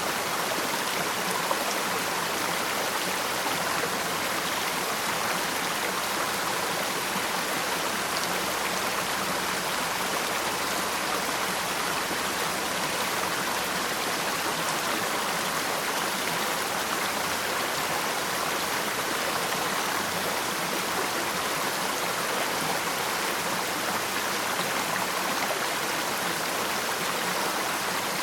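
Waterfall, water falling and splashing in a steady, unbroken rush.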